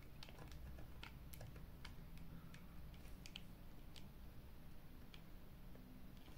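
Faint, irregular clicks and taps as a pair of plastic sunglasses is turned over in the hands, the frame and hinged arms clicking.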